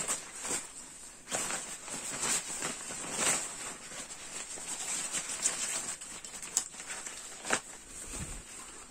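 Synthetic nylon shell of a goose-down sleeping bag rustling and crinkling irregularly as it is stuffed by hand into its compression sack, with a few sharper swishes.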